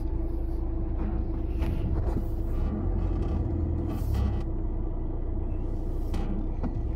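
Cabin noise of a Fiat Egea creeping along a rough, rutted dirt track: steady low engine and tyre rumble with a steady hum, broken by a few brief knocks and rattles as the car goes over bumps.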